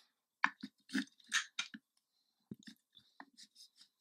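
A run of small clicks and light scrapes as a Glock pistol and a trigger pull gauge are handled and the gauge is set on the trigger for another pull measurement, the louder clicks in the first two seconds and fainter ticks after.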